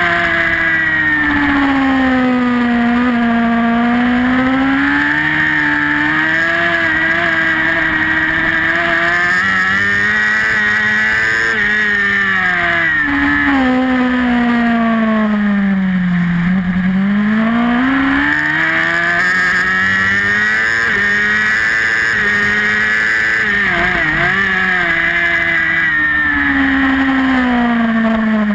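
Racing superbike's engine at close range from a camera mounted on the bike, its revs rising and falling as the rider accelerates out of corners and slows into them. The pitch sinks lowest about halfway through, climbs again, dips sharply once near the end and falls at the close.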